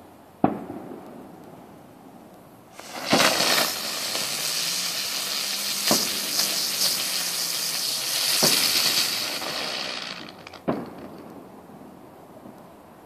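A sharp bang about half a second in. Then a ground bloom flower firework spins and hisses loudly for about seven seconds, with several sharp cracks through it, and dies down near the end.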